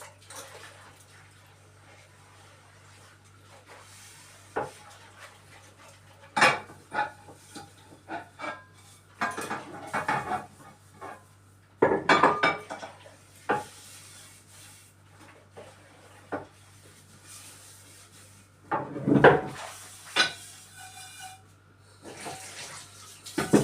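Dishes, pots and cutlery being handled: irregular clatters and clinks, some ringing briefly, over a steady low hum.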